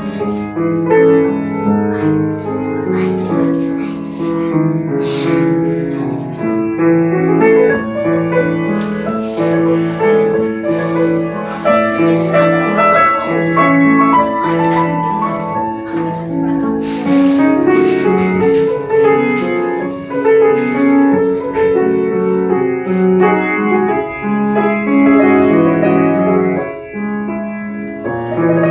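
Grand piano played solo, a continuous piece of many quick notes in the middle and low registers, with no pause.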